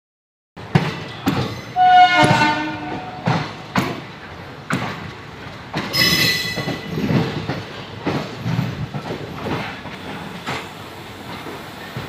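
Passenger train rolling slowly, its wheels knocking irregularly over rail joints and points. A train horn sounds for about a second, about two seconds in, and a short high wheel squeal comes around six seconds in.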